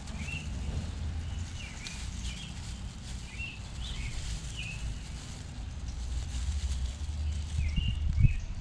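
A bird chirping repeatedly in short quick notes, over a steady low rumble, with a single thump near the end.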